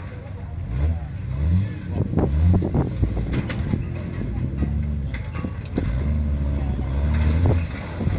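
A four-wheel-drive SUV's engine revving up and down under load as the vehicle crawls over boulders and concrete pipes, with a few knocks in between.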